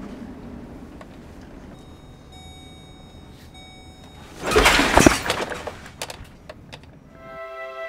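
Low, steady road and engine noise inside a moving Chevrolet van's cab. About four and a half seconds in comes a sudden loud rushing noise lasting under a second, then a few sharp clicks, and music starts near the end.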